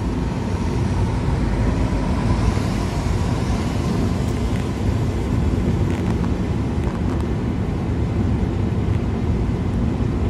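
Steady cabin noise of a Toyota car driving at highway speed on a wet road: engine drone and tyre hiss on the wet surface, with a few faint ticks.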